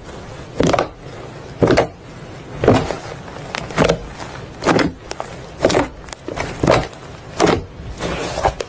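White slime being squeezed and pressed by hand, making a short squish about once a second over a faint steady hiss.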